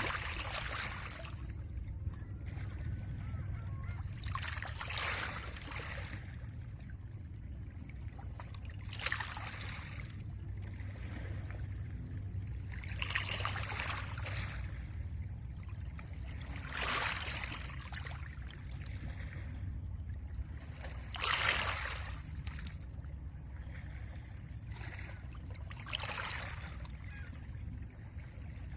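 Small lake waves breaking gently on a pebble shore, one wash about every four seconds, with a steady low rumble underneath.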